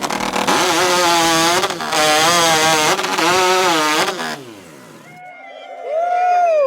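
Rotary-engine racing chainsaw (hot saw) running flat out through a log in three cuts, its pitch dipping briefly between cuts. The engine dies away with falling pitch about four seconds in, and shouts and cheering follow.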